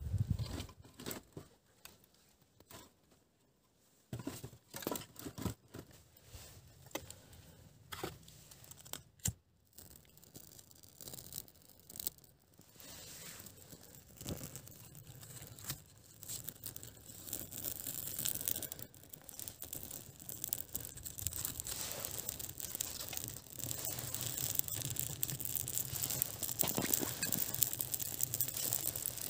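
Split firewood knocking against the barrel tandoor as it is loaded, then a kindling fire catching in the brick firebox, its crackle growing louder over the second half.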